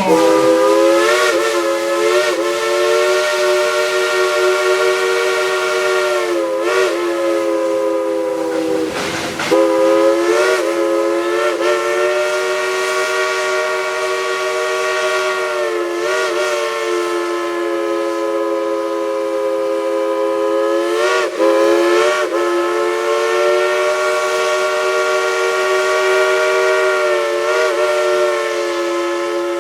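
Crosby three-chime steam whistle blowing one long, loud chord over a hiss of steam. Every few seconds the pitch briefly sags and wavers as the valve is worked, with a short break about nine seconds in.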